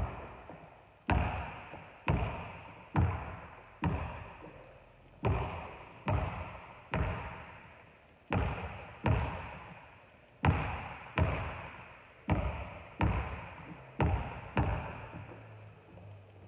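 A basketball dribbled on a wooden gym floor, about one bounce a second with a short pause after the fourth, each bounce echoing through the large hall. The bouncing stops near the end.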